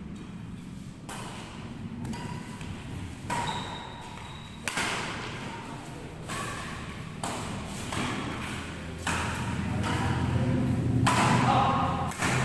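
Badminton rally: rackets striking a shuttlecock back and forth, a sharp hit about once a second.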